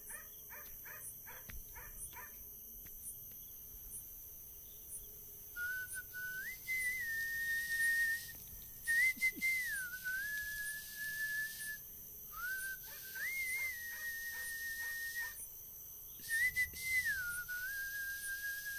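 Someone whistling a slow tune in four long phrases, starting about five seconds in; each phrase holds a clear note and slides up or down to another. Crickets chirp faintly in a steady beat behind it.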